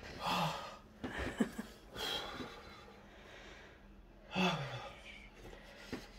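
A man breathing hard through an open mouth against the burn of an extremely hot chilli chip: four heavy breaths out, the last, about four seconds in, carrying a short low moan that falls in pitch.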